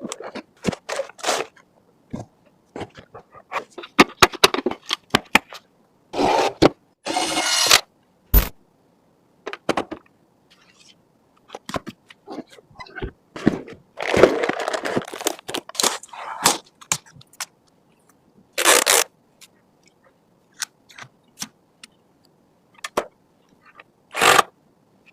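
Computer hardware being handled during assembly: scattered sharp clicks and taps, with several short scraping and rustling noises between quiet gaps.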